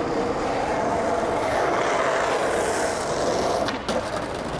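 Steady noise of road traffic with a vehicle going by. Near the end it gives way to sharp clacks of a skateboard hitting the paving.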